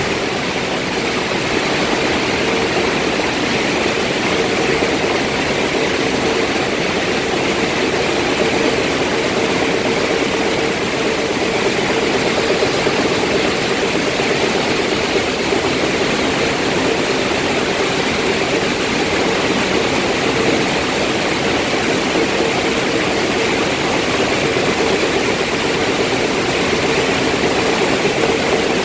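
Sand washing machine running: a loud, steady machine noise with a constant hum, mixed with rushing water.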